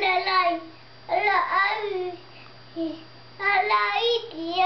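A toddler singing in short, high-pitched phrases with brief pauses between them.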